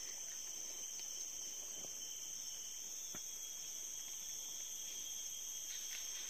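Insect chorus of crickets or similar insects trilling, a steady high-pitched drone, with a few faint ticks.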